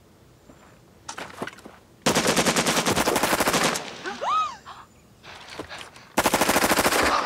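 Two bursts of automatic weapon fire, each a rapid, even run of shots. The first, about two seconds in, lasts under two seconds; the second, near the end, is shorter.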